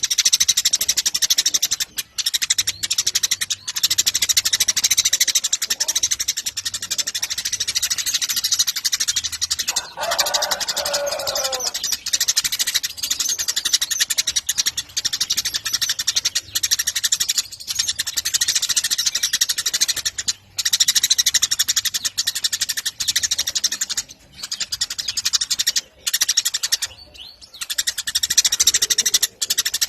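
A flock of Eurasian tree sparrows chirping, a dense, continuous stream of short chirps with brief breaks. About ten seconds in, a single lower, drawn-out call slides down in pitch over a couple of seconds.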